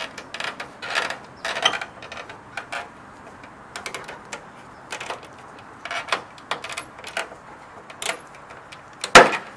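Plastic hood scoop of a Mini Cooper S R56 being pried up off the bonnet: a run of irregular clicks from its plastic clips and trim, with one loud snap near the end.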